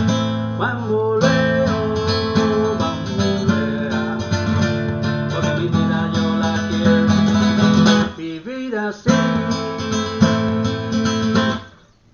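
Acoustic guitar strumming a rumba flamenca rhythm, with a brief break about eight seconds in, then stopping abruptly near the end.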